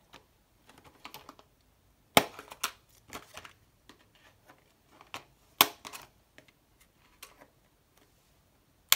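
Scissors snipping through stiff plastic packaging: a string of sharp, irregular clicks and cracks, the loudest about two seconds in and again about five and a half seconds in.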